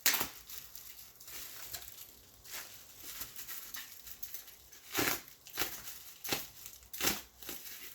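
Plastic packing wrap crinkling and tearing as it is cut and pulled away. There is a sharp rustle right at the start and a cluster of four louder rips in the second half.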